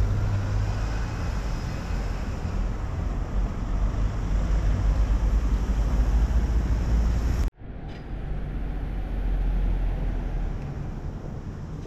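Outdoor ambience with a steady low rumble. All sound cuts out sharply for a moment about seven and a half seconds in, then the rumble resumes a little quieter.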